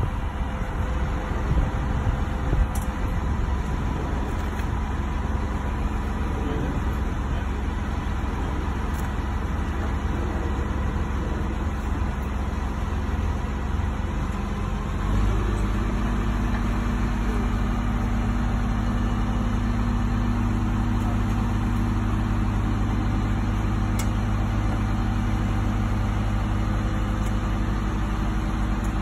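Diesel engine of a compact tracked horizontal directional drilling rig running steadily, with a few light knocks early on. About halfway through the engine note steps up and holds at the higher level.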